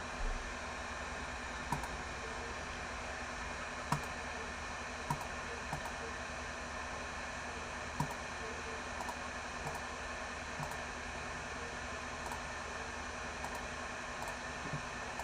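Steady hiss of background noise with about a dozen light, irregularly spaced clicks and taps, like typing on a computer keyboard.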